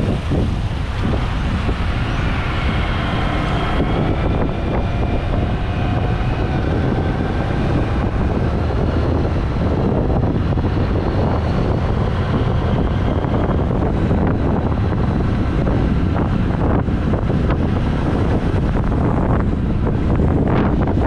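Wind blasting across a helmet-mounted GoPro Hero 8's built-in microphone while riding a motorcycle, with engine and traffic noise underneath; faint rising and falling engine pitches come through now and then.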